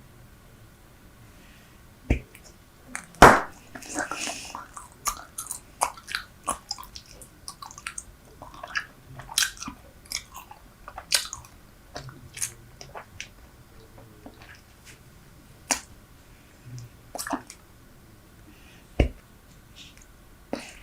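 Close-miked chewing of Super Bubble bubble gum: irregular wet smacks and clicks. A few louder snaps come about two seconds in, just after three seconds, and near the end.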